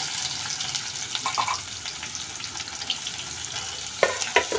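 Chopped onions sizzling and crackling in hot mustard oil with garlic in an aluminium kadai, stirred with a metal spatula. A few sharp knocks of metal on the pan come about four seconds in.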